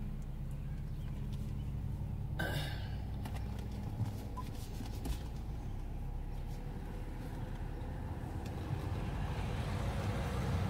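BMW 528i's engine running at low speed, heard from inside the cabin as the car pulls away, a steady low hum that grows a little louder near the end. A short burst of noise about two and a half seconds in.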